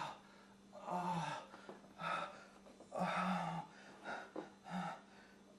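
A man on the floor gasping and crying out in pain, about six short cries in a row, each under a second, with brief pauses between them.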